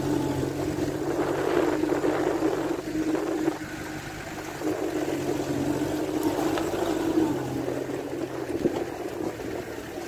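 UAZ off-road vehicle's engine running steadily under light throttle as it drives along a grassy track, easing off briefly about four seconds in.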